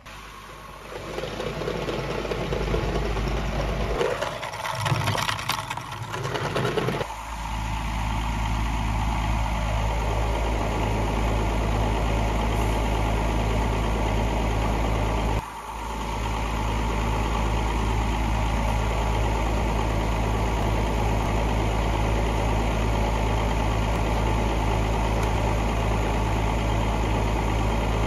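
Farm tractor engine idling steadily, with a brief dip in level about fifteen seconds in.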